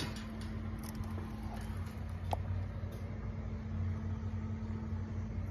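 A steady low mechanical hum, like a running engine, with one short faint click a little past two seconds in.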